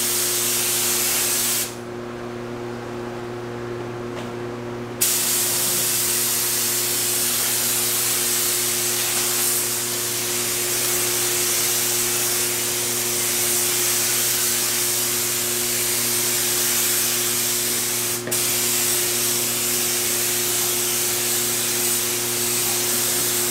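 Compressed-air paint spray gun hissing steadily as paint is sprayed onto a car fender. The trigger is let off about two seconds in for some three seconds, and again for a moment later on, over a steady low hum.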